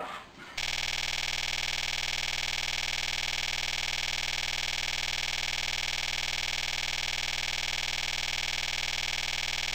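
A loud, steady electronic buzzing tone, full of overtones and with a fast even pulse, switching on abruptly about half a second in and holding unchanged.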